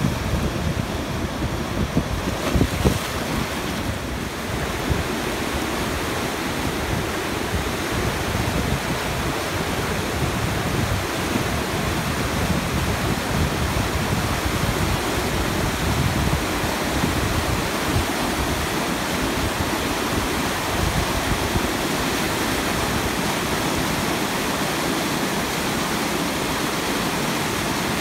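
A muddy river in spate rushing hard over and around boulders: a steady, loud wash of turbulent water.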